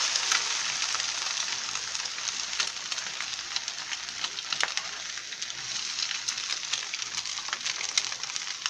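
An egg frying on a hot flat griddle: a steady sizzling hiss dotted with many small crackling pops, loudest at the start and easing slightly after the first second.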